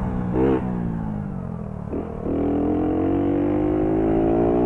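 Four-stroke moped engine gives a short rev, then its pitch falls as it slows. About two seconds in it pulls away, the pitch climbing steadily as it accelerates.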